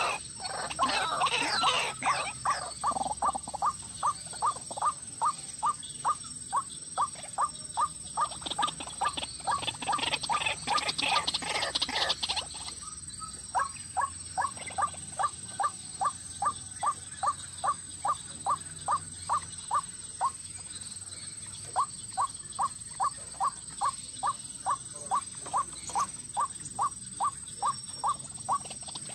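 White-breasted waterhen calling: a long run of short, evenly repeated notes, about three a second, broken by two short pauses. A louder, rougher burst of croaking calls comes right at the start and again around the middle of the first half.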